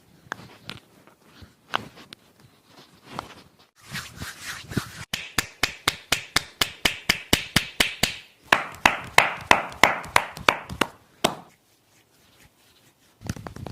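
Hands slapping and tapping on skin in a percussive massage. A few scattered slaps come first, then a long quick run of sharp slaps, about four a second, which stops shortly before the end. Near the end a lower, rougher rubbing begins.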